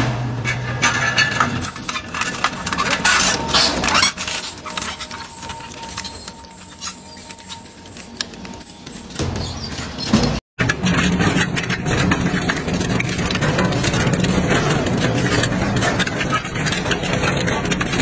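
A twin-shaft industrial shredder's hooked steel cutters tear apart a metal radiator with loud irregular cracks and metal bangs, and a high metallic squeal for a few seconds midway. After a brief dropout the shredder runs steadily, grinding through steel square tubing with a dense continuous noise over a low hum.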